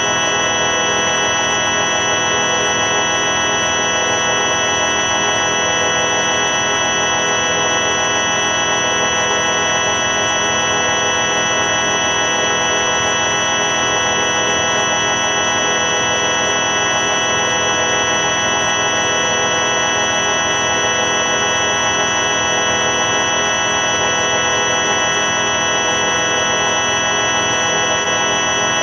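Steady electronic drone: a dense chord of many held tones with an organ-like buzz, unchanging in pitch and loudness, from the '4ormulator V5' sound effect played back at the wrong pitch.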